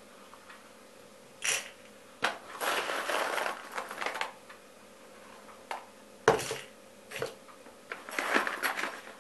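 Whole coffee beans scooped with a tablespoon from a bag and tipped into the bowl of a Bosch electric coffee grinder: several rattling spills of beans with clicks of the spoon, and one sharp knock about two-thirds through.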